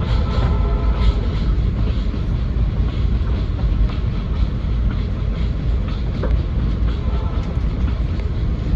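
Passenger train rolling along the track, heard from aboard: a steady low rumble of wheels on rails, with a few faint clicks from the rail joints.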